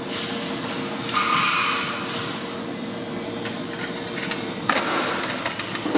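Speed Queen stack dryer running on a freshly replaced drive belt, a steady motor hum with a constant tone. Bursts of clatter about a second in and a run of sharp clicks near the end.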